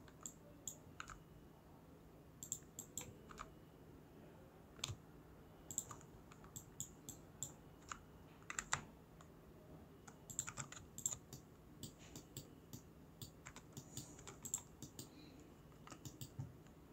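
Faint, irregular clicks of a computer keyboard and mouse, sometimes in small clusters, over a faint steady low hum.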